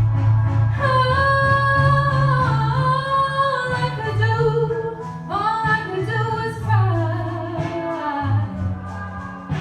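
A woman singing a song with long held notes that slide up and down in pitch, over instrumental accompaniment with a steady bass line.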